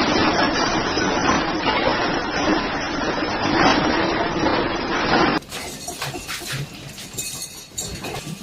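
Loud, dense clatter with glass breaking, typical of objects shaken and falling in an earthquake. About five seconds in it cuts abruptly to a quieter clip of scattered knocks and rattles.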